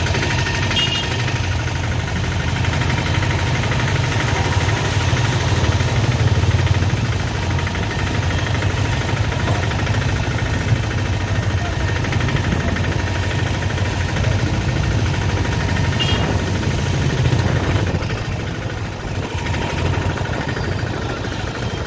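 A vehicle engine running steadily, with a low rumble and a continuous hiss over it.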